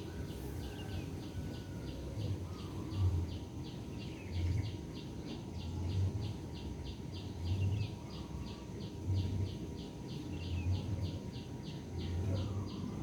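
A rapid, even train of short high chirps, about three a second, kept up without a break over a low rumbling background noise.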